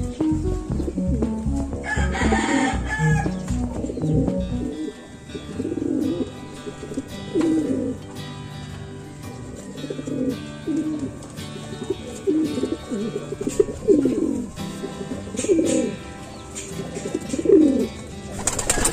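Domestic racing pigeons cooing: a series of short, low, falling coos, starting about five seconds in and coming every second or two, over background music.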